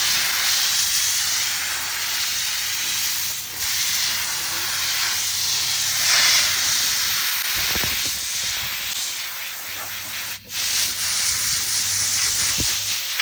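A car-detailing tool hissing steadily, with a short break about ten seconds in.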